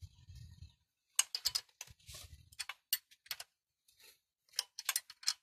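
Metallic clicks of a 10 mm wrench tightening the exhaust nuts on a motorcycle cylinder head, coming irregularly in short clusters.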